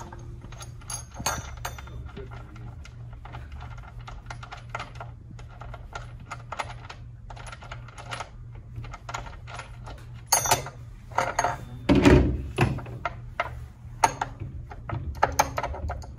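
Small metal clicks, clinks and rattles as the blade bolt, washer and flange on a Husqvarna 14-inch cutoff saw are loosened and handled with a wrench and gloved hands. There are a few louder knocks around ten to twelve seconds in.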